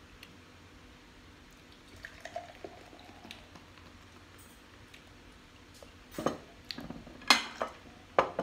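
Beer poured from a glass bottle into a glass beer mug, followed near the end by about five sharp knocks and clinks of glass as the bottle and mug are set down on the table.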